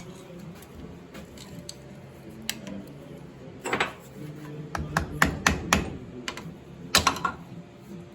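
A series of sharp metallic clicks and clanks, most of them between about four and six seconds in, from hand tools and steel parts knocking together during work on a tractor's front axle seal.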